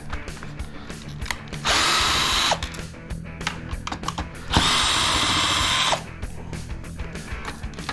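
Power drill running to back out screws: two short runs of the motor, one of about a second a couple of seconds in and a longer one of about a second and a half past the middle, over background music.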